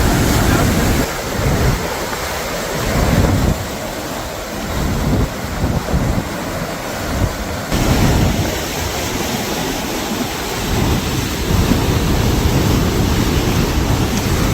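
Strong wind buffeting the microphone, rumbling in uneven gusts over a steady hiss.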